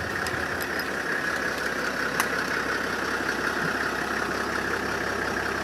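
Safari hunting vehicle's engine idling steadily, with a faint click about two seconds in.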